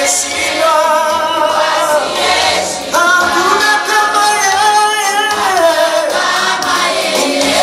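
A group of voices, mostly women's, singing a lively gospel praise song together, with some long held notes.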